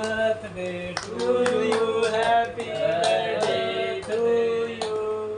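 Male voices singing while hands clap along in time, about two claps a second.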